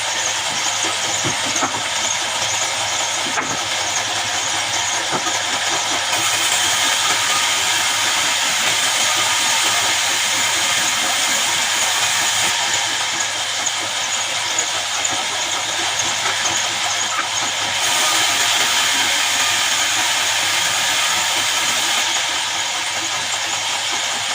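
Horizontal band sawmill running, its blade sawing through a jackfruit log: a steady noise that turns louder and brighter twice, for several seconds each time.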